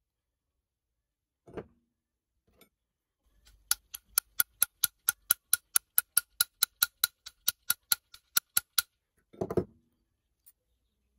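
A rapid, even run of sharp metallic clicks, about five a second for some five seconds, as a hand drill's gear mechanism is worked. A dull knock of the parts being handled comes before the clicks and another after.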